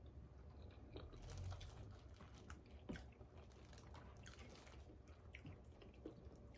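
Faint chewing while eating, with scattered small clicks of a fork on a paper plate, over a low steady hum.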